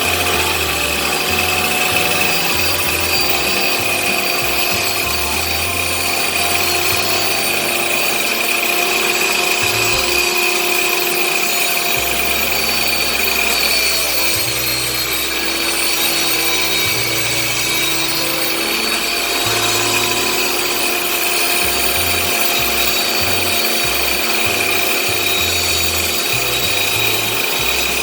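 A power tool running steadily with a high whine, most likely while cutting wood, with background music and a changing bass line underneath.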